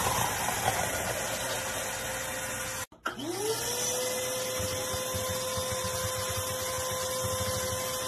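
Vacuum cleaner running with a steady whine. A little under 3 seconds in it cuts off briefly, then the motor starts again, its whine rising in pitch over about half a second and then holding steady.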